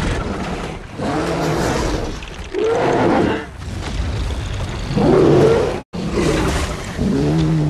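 Red Bluster sea-monster creature sound effects: a string of about six deep roars, one after another, each rising and falling in pitch. One roar cuts off abruptly about six seconds in.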